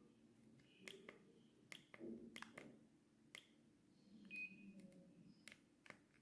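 Near silence with a faint low hum and about ten faint, scattered clicks and taps.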